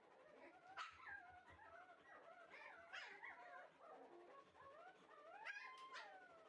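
Shiba Inu puppies whining and yipping quietly in play: a few high, wavering calls, the loudest near the end.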